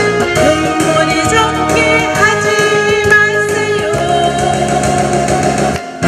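Korean trot song: a woman singing over an instrumental backing track, with a brief drop in the music just before the end.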